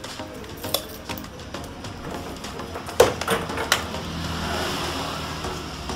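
A few sharp clicks and knocks of something being handled, the loudest about halfway through and another shortly after, over a low steady hum and faint background music.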